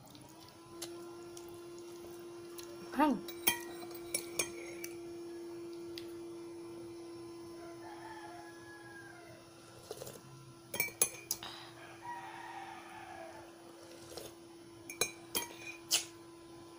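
A metal spoon clinks several times against a ceramic mug and a glass bowl in short clusters, over a steady low hum. A rooster crows a few times in the background.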